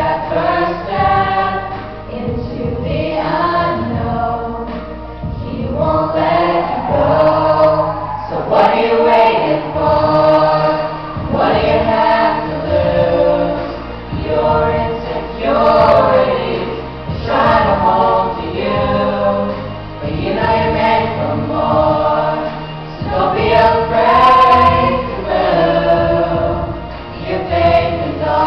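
Small mixed vocal ensemble of young men and women singing in harmony into handheld microphones, amplified through a PA.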